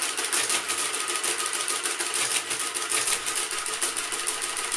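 Madas Model 20LZVG electromechanical calculator running an automatic division: its motor-driven mechanism clatters in a rapid, steady stream of clicks as it repeatedly subtracts the divisor in the register and steps the carriage along.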